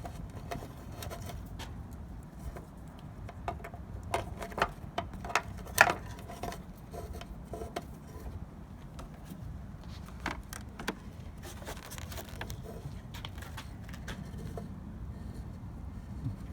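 Irregular light clicks and rattles of a tow mirror's wiring harness and plastic parts being handled and fed through the door's mounting hole, with the loudest knocks about four to six seconds in, over a steady low hum.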